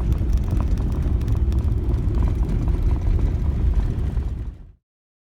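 Steady low rumble of a vehicle, fading out and cutting off about four and a half seconds in.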